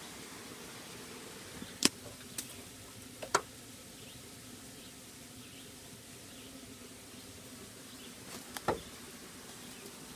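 Low, steady buzz of a flying insect. A few sharp snaps of sticks and dry leaves underfoot come about two seconds in, again near three and a half seconds, and once more near the end.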